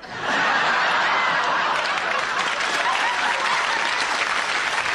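Studio audience breaking into loud, sustained applause that starts suddenly and holds steady, with a few voices in the crowd.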